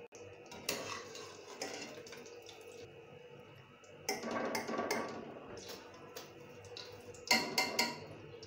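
Wire spider skimmer clinking and scraping against a metal frying pan as fried bread slices are scooped and lifted out of hot oil. There are a few sharp metal clicks, a busier scraping stretch about halfway through, and a quick run of clinks near the end.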